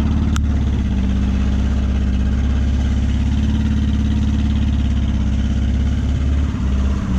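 2003 Ford Focus engine held at steady revs while the stuck car spins a wheel in loose dirt on a slope without moving. There is a brief click about half a second in.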